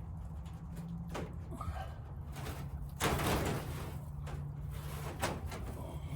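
An object being handled and moved: a few knocks, and a short loud scraping rattle about three seconds in, over a steady low hum.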